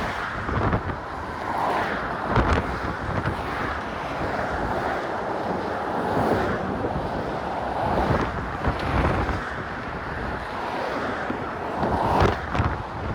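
Strong wind buffeting a phone microphone muffled by a sock, in uneven gusts with a few sharper blasts, over a steady rush that likely includes bridge traffic.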